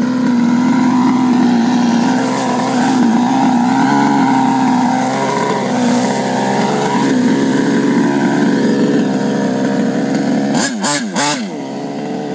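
59cc twin-cylinder two-stroke engine of an HPI Baja 1/5-scale RC buggy, stroked and CNC-ported, running at high, fairly steady revs. Its pitch wavers a little, then dips and rises sharply a few times near the end.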